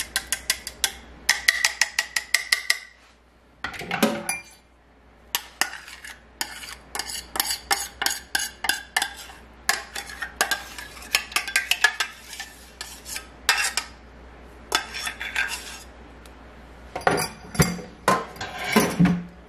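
A metal spoon scraping and tapping against a small stainless steel saucepan in rapid clinks and scrapes as thick cream sauce is scraped out into a stainless steel mixing bowl; a few strikes ring briefly.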